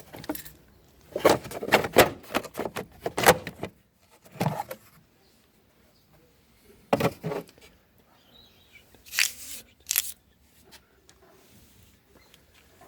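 Clinks and scrapes of hand tools and metal parts being handled while disconnecting a car battery, in several short bursts with pauses between them.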